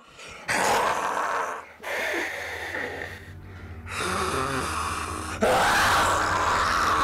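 A woman snarling in long, raspy breaths, about four in a row, with a low steady hum underneath from about two seconds in.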